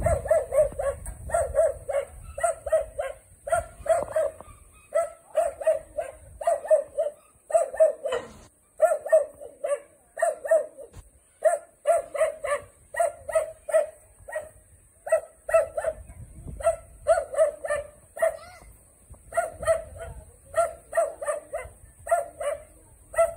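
A dog barking over and over at a steady pace, often two or three barks close together.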